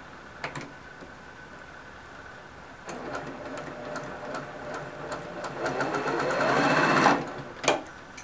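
Electric domestic sewing machine stitching a seam: it starts about three seconds in and speeds up, the motor's pitch rising with the rapid stitch strokes, then stops abruptly. A single click comes shortly before it starts and another shortly after it stops.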